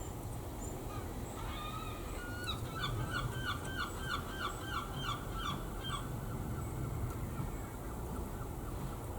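A bird calling: a short rising note, then a rapid run of about a dozen short pitched notes, three to four a second, for roughly three seconds, over a steady low room hum.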